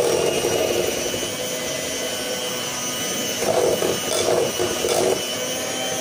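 Electric hand mixer running steadily, its beaters churning through thick mascarpone cheese and an egg and sugar mixture in a glass bowl, getting louder for a few moments about halfway through.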